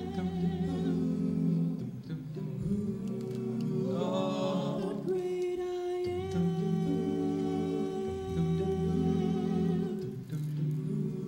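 A cappella vocal group humming wordless held chords in close harmony, the chord changing about every two seconds.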